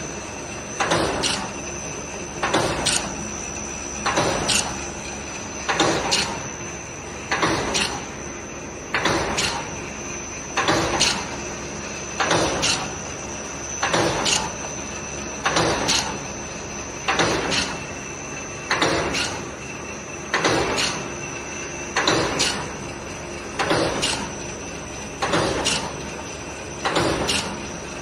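Non-woven spa bed sheet rewinding machine running, with a steady high whine and a short loud burst of noise repeating evenly about every second and a half to two seconds, once per cycle of the machine.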